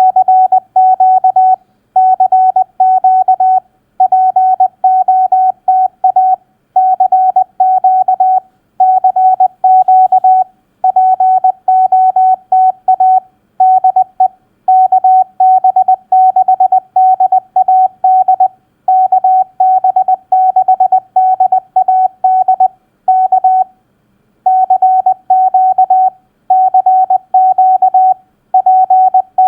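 Morse code (CW) keyed as a single steady tone at 20 words per minute, in quick dots and dashes grouped into words with short pauses between them: a Parks on the Air activator's CQ call.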